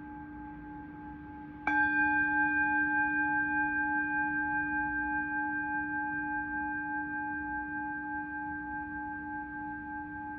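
Singing bowl struck once about two seconds in, over the fading ring of an earlier strike. The note rings on with several overtones above a low tone, pulsing gently as it slowly fades.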